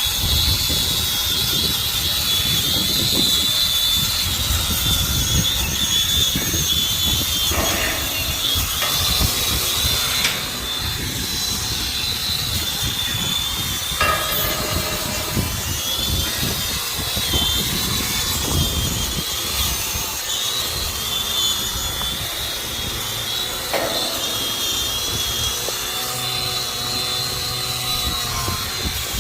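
Machinery running steadily with a high, wavering whine over a rough low rumble.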